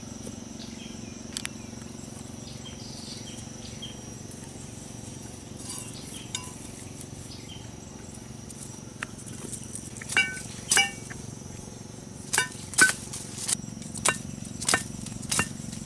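Sharp knocks with a brief ringing tone, about nine strikes at uneven intervals in the last six seconds: a machete blade knocking a bamboo stake into the ground.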